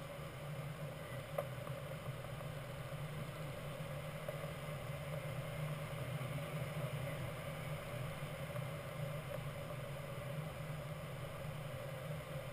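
Steady rush of airflow around the canopy and cockpit of a Grob 103 glider in flight, with one short click about a second and a half in.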